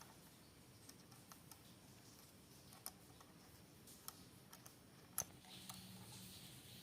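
Near silence with scattered faint, sharp clicks, the loudest a little past five seconds in: small screws and metal parts being handled and fitted while a sewing machine's feed dogs are screwed back in place.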